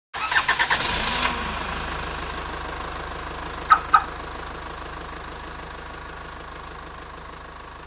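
Intro sound effect: a rapid mechanical rattle of clicks at the start, then a steady low mechanical hum that slowly fades, with two sharp clicks close together just before four seconds in.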